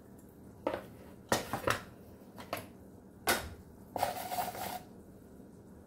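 Kitchen utensils being handled at a work counter: a handful of short clinks and knocks over about three seconds, then a rougher, slightly longer scrape or rattle about four seconds in.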